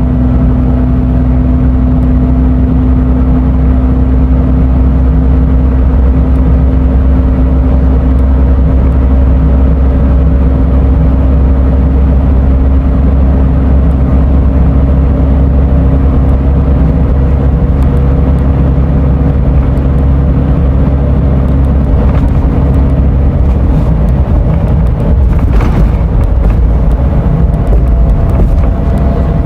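Scania Euro 6 diesel engine of an Irizar i6S coach running steadily under way, heard from aboard the bus. About three quarters of the way through, the steady engine note breaks up and changes.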